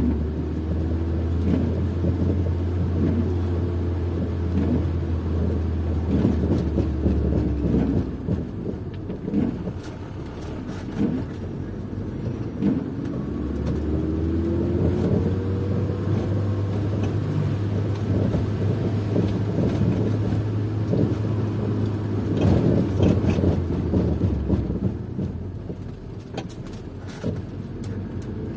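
Car driving, heard from inside the cabin: a steady low drone of engine and road noise, with the engine note rising a few times as it accelerates.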